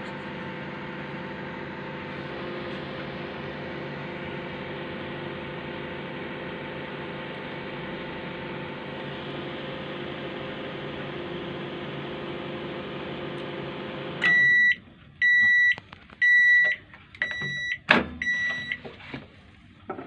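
Microwave oven running with its casing off, a steady hum from its transformer, magnetron and fan, with no crackle of sparking after the magnetron was replaced. About 14 seconds in the hum stops and the oven beeps five times, about once a second, signalling the end of the cooking cycle, with a sharp click among the last beeps as the door is opened.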